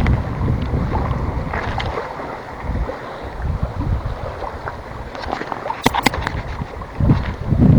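Wind buffeting the microphone, a low rumble that is strongest at the start and eases off over the first few seconds. A few sharp clicks come about six seconds in, and low thumps near the end.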